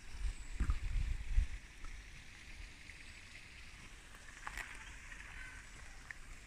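Low rumbling bumps on the microphone for about the first second and a half, then faint steady outdoor hiss with a few faint ticks.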